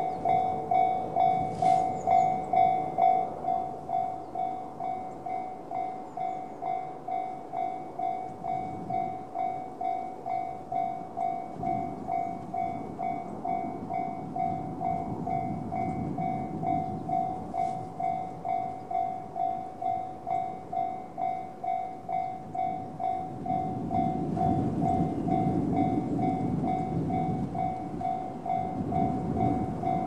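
Japanese level-crossing warning bell in the JR standard tone, an electronic ding repeating about twice a second without a break. Under it the rumble of a Series 115 electric train builds, swelling once midway and loudest over the last several seconds.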